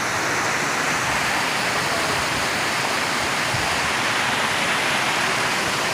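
Rocky mountain stream rushing steadily over boulders and small cascades.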